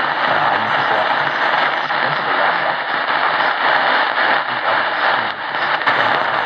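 Tecsun PL-680 portable radio tuned to 850 kHz on the AM band at night, giving a dense hiss of static with a weak signal from a distant station buried in it. A faint high whistle drops out about two seconds in and returns near the end.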